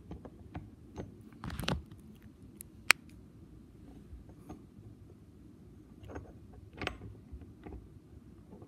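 Light metal clicks and clinks of steel gears being turned and worked by hand into a Borg Warner 4485 transfer case planetary gear set, with one sharp click about three seconds in and short rattles around it.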